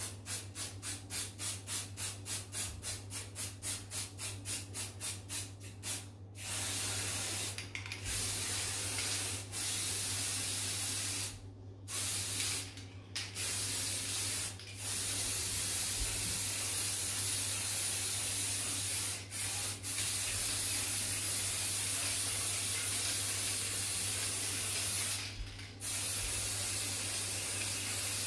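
Aerosol can of silver spray paint spraying with a steady hiss. For the first six seconds or so it comes in quick short pulses, then in long continuous bursts broken by brief pauses.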